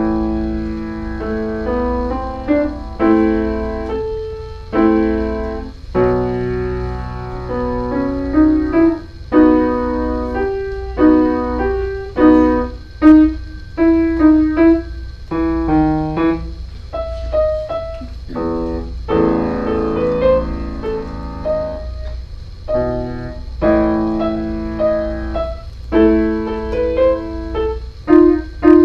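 Solo piano playing a recital piece in short phrases of chords and melody notes, with brief pauses between phrases. A steady low hum runs underneath.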